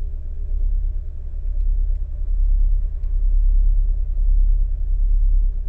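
Kenwood KFC-W112S 30 cm car subwoofer in a bass-reflex enclosure playing a 35 Hz sine test tone, a deep steady drone in the car cabin that swells about two seconds in. At this frequency it sounds completely odd, below where this woofer is comfortable.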